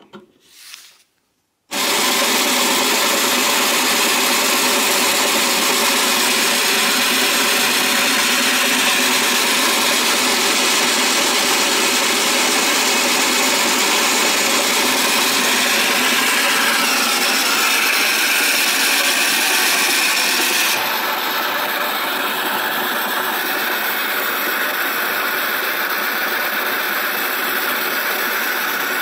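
Motor and film-advance mechanism of a 1960s Cragstan TV-X battery-operated toy 8 mm projector running with a steady, noisy whir. It starts abruptly after a few light clicks, just under two seconds in, and becomes slightly quieter about two-thirds of the way through.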